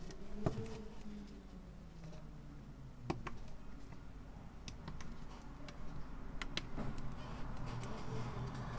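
Scattered light clicks and taps of small tools and iPhone parts being handled during reassembly. A few sharp ticks come irregularly, about a second or more apart, over a faint steady low hum.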